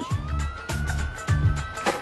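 Music with a steady beat, over a police siren wailing: a tone that rises about the start and then holds high.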